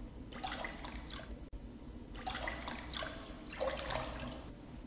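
Faint crackle and hiss of a vinyl LP's surface noise in the silent groove between two tracks, over a low hum.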